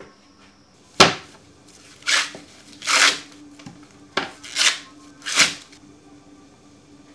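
Fresh corn husks being torn off ears of sweet corn by hand: about six short, crisp ripping sounds, the first the loudest, then they stop.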